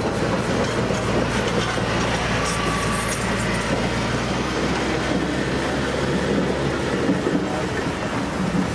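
Buffalo-Springfield steam roller running as it drives slowly past, a steady mechanical clatter with a low hum underneath that drops away about seven seconds in.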